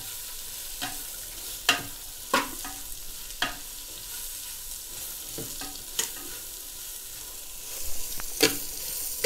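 Sliced onions and green chillies sizzling in oil and ghee in a clay pot, stirred with a perforated steel spoon that clinks and scrapes against the pot's clay sides at irregular moments. The onions are being fried towards reddish-brown.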